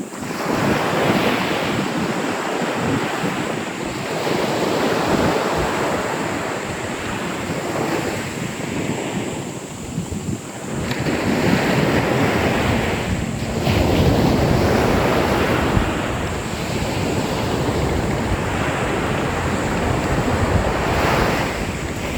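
Ocean waves breaking and washing up a beach, the surf swelling and easing every few seconds, with wind buffeting the microphone as a low rumble.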